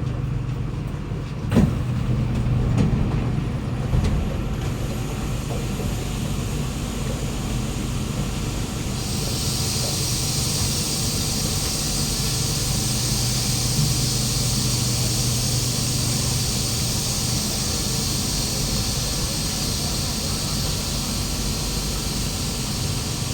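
Kawasaki Nippon Sharyo C751B metro train standing at a platform with its doors open, its onboard equipment giving a steady low hum. A couple of thumps come in the first few seconds, and from about nine seconds in a steady hiss joins the hum.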